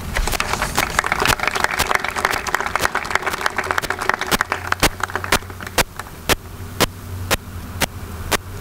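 Audience applause: dense clapping that thins out about five seconds in, leaving sharp, evenly spaced clicks about twice a second.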